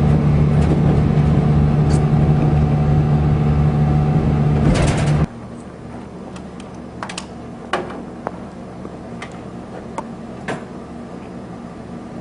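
A vehicle's engine drones steadily, then the sound cuts off abruptly about five seconds in, leaving a quieter background with a few scattered clicks and knocks.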